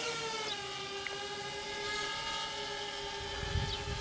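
Parrot Bebop quadcopter's electric motors and propellers whining steadily in flight, the pitch dipping slightly about half a second in and then holding steady.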